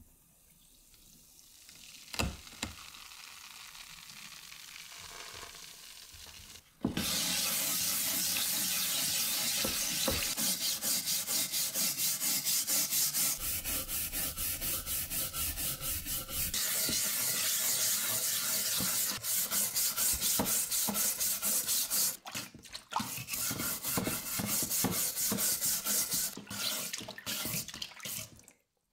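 A stiff-bristled hand brush scrubbing a wet, rust-remover-coated steel cleaver blade in rapid back-and-forth strokes, loosening the softened rust as black sludge. Before it starts, about seven seconds in, there is a faint wet hiss with a single click.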